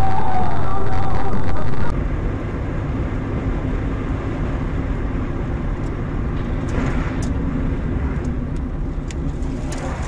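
A car driving, with steady engine and road noise heard through a dashcam, and a few faint clicks. For the first two seconds a louder tune plays, which cuts off abruptly.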